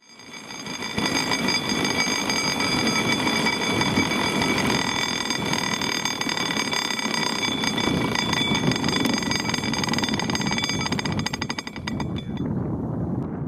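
Great Orme Tramway's steel haulage cables running over a trackside pulley sheave: a steady rumbling whir with several high ringing tones. A fast rattle of clicks comes in near the end as it fades away.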